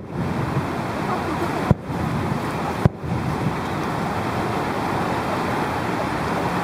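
Fireworks going off in sharp single bangs, three within the first three seconds, over a steady rushing background noise.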